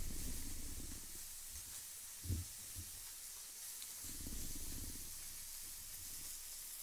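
Slices of pork jowl sizzling on an electric grill pan as a steady faint hiss, with one soft knock about two seconds in.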